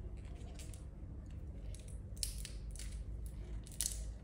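Plastic wrapping on a pack of AA batteries being crinkled and torn open by hand: short rustling crackles, the loudest about two seconds in and near the end, over a steady low hum.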